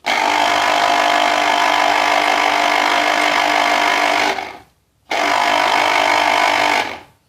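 Electric citrus juicer's motor running as mandarin halves are juiced, in two steady bursts: about four seconds, a short pause, then about two seconds, each starting and stopping abruptly.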